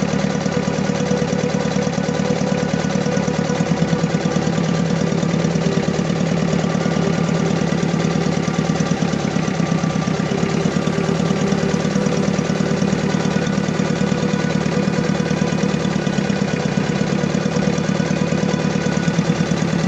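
Engine idling steadily with a rapid, even pulsing beat. The uploader puts it down to a misfiring injector and a fuel-system fault causing vibration and loss of power.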